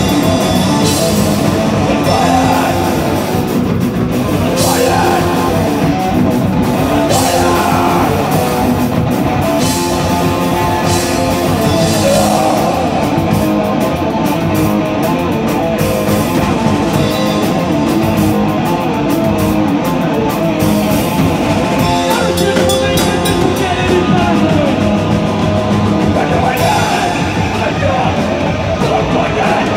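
A live band playing loud rock, with guitar and a drum kit going without a break.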